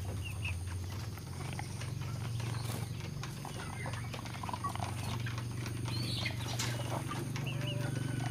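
Chicken being held, making small clucks and calls, with scattered clicks from handling, over a steady low hum.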